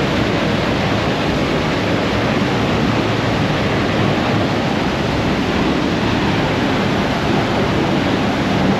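Waterfall pouring, a loud, steady, unbroken rush of falling water.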